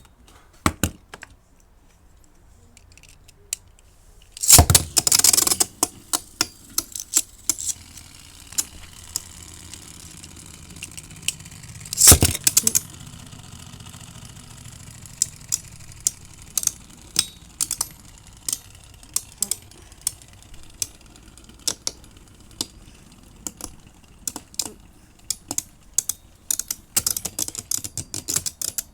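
Beyblade spinning tops battling in a plastic stadium. A loud clatter comes about four and a half seconds in and another sharp hit about twelve seconds in, then a long run of quick clicks and knocks as the tops spin and clash.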